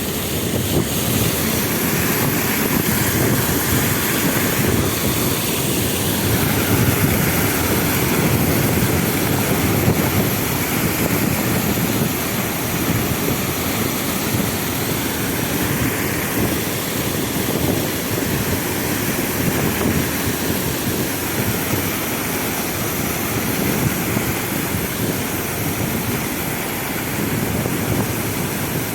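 Sand pump used to load sand onto a boat, running steadily with a loud, continuous rumble.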